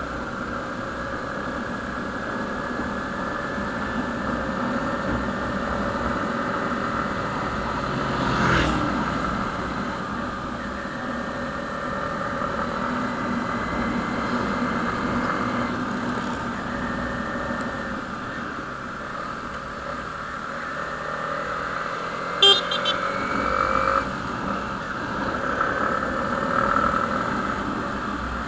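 Motorcycle engine running at a steady cruise with wind and road noise. There is a brief swell with a falling pitch about eight seconds in, and a short sharp sound about twenty-two seconds in.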